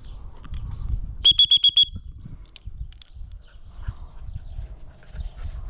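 Dog-training whistle blown in five quick, high toots about a second in, the multiple-blast recall signal calling the retrieving dog back in.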